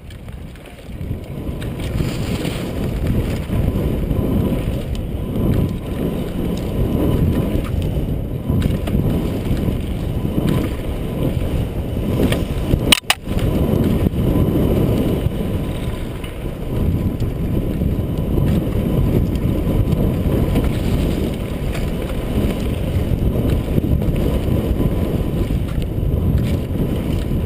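Mountain bike rolling fast down a dirt trail, heard from a helmet-mounted camera: a steady low rumble of the tyres on the dirt and the bike rattling over the ground, with wind on the microphone. A single sharp click comes about halfway through.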